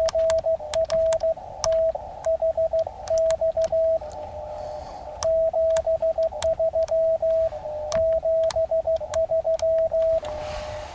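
Morse code (CW) from an Elecraft KX2 ham transceiver: a single mid-pitched tone keyed on and off in dits and dahs, with thin clicks at many of the keyings. In the pauses there is the hiss of the receiver's narrow CW filter.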